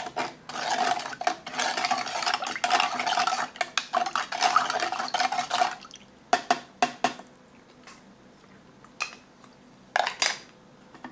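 A spoon stirring a drink in an aluminium canteen cup: rapid scraping and clinking against the metal cup, with the cup ringing faintly, for about six seconds. The stirring then stops, leaving a few separate clicks.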